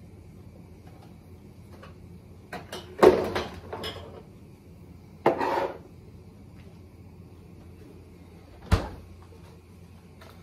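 Kitchen handling noises as food jars and containers are taken from the refrigerator and set on the stone countertop: a loud clatter about three seconds in, a shorter scraping rustle a little after five seconds, and one sharp knock near the end.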